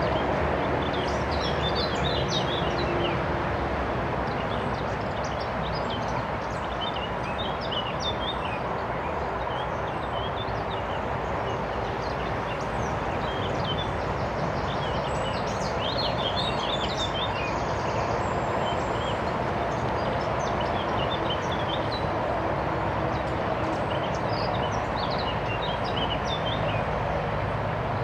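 Steady hum of road traffic, with birds chirping and singing over it throughout.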